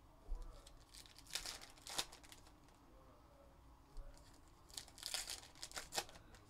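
Foil wrappers of Upper Deck Goodwin Champions trading-card packs being torn open and crinkled by hand, in two bursts: about a second in and again near the end. A couple of soft low thumps of handling come between.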